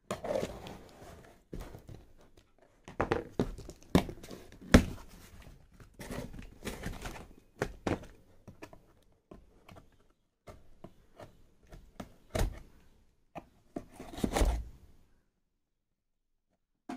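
A cardboard shipping box being opened by hand: a small blade scraping through the packing tape, tearing and rustling of tape and cardboard, and scattered thumps against the box, the loudest about five seconds in. Near the end comes a longer rustling as the flaps are pulled open.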